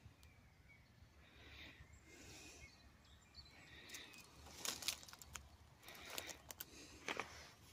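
Quiet outdoor ambience with a low rumble of wind on the microphone, and footsteps rustling and crackling through dry grass and fallen brushwood, loudest in clusters of crackles about halfway through and again near the end.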